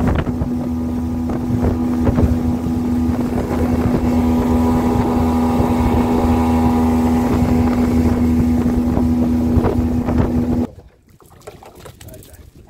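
Motorboat's outboard engine running steadily at speed, a constant drone with water rushing past the hull. About ten and a half seconds in it cuts off suddenly, leaving much quieter sound of water beside the boat.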